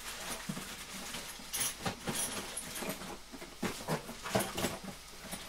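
Rummaging through tools and parts: a scattered run of irregular knocks, clicks and rustles as objects are moved about in a search for clamps.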